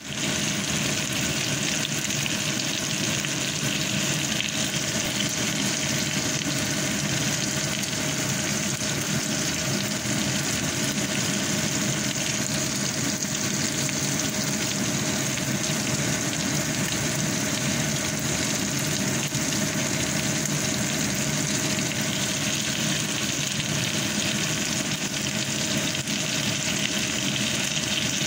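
Pork pieces sizzling steadily in hot oil in a frying pan.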